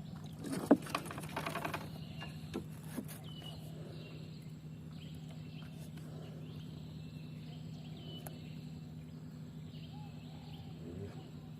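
Outdoor ambience with a steady low hum and faint bird or insect calls, broken about a second in by a short burst of clicks and rattling.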